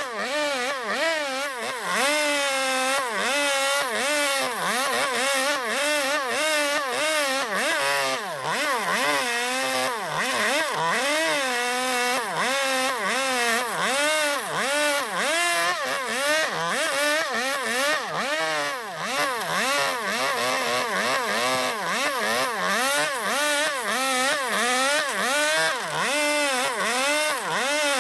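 Petrol chainsaw carving into zelkova wood, its engine pitch rising and dropping over and over, about two to three times a second, as the throttle is worked and the chain bites into the cut.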